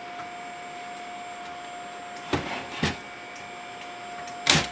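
Open test-bench PC running: a steady whir of its fans and drives with a thin steady tone. Two short knocks a little over two seconds in and a louder knock near the end.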